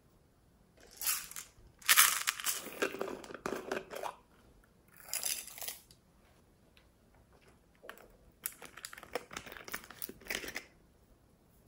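Small plastic containers of slime supplies being handled, in several crinkly, crunchy bursts. Near the end a plastic bottle's cap is worked open with a quick run of clicks and crackles.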